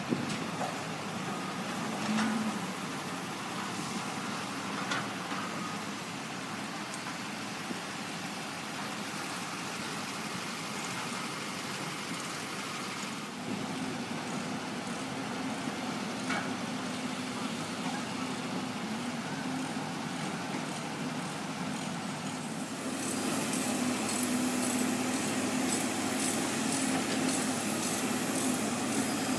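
Engines of excavators and other heavy equipment running in a steady drone, which grows louder about two-thirds of the way through.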